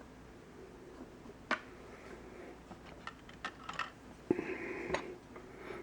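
Scattered light clicks and taps, with a brief faint rustle about four seconds in, as small objects are handled.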